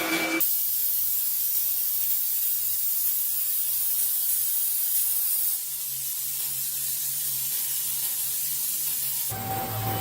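CNC machining of a fan rotor: a steady high hiss of spray over a low steady machine hum. The sound changes abruptly about half a second in, again around five and a half seconds, and near the end.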